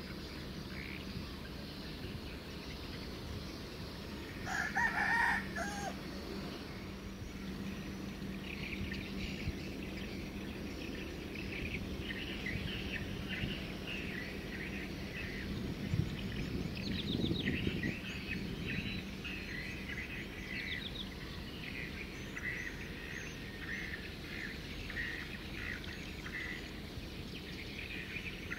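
A rooster crows once, about five seconds in, then small birds chirp repeatedly through the rest. Underneath runs a steady low rumble with a hum, from a passing container ship.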